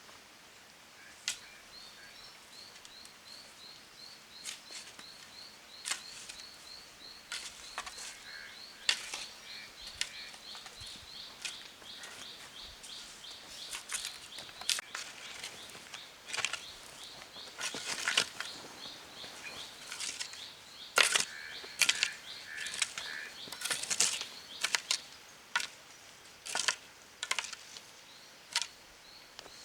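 Irregular sharp clicks and knocks, more frequent in the second half, over a high chirping call repeated rapidly and steadily.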